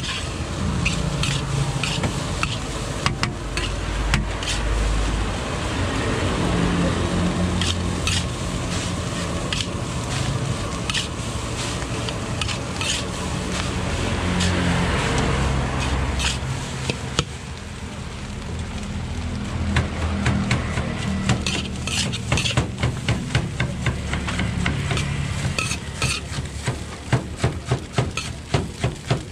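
Metal spatula scraping and clanking against a large steel wok as a heap of fried rice is stir-fried, with the sizzle of frying under it. Near the end the clacks come quickly, several a second.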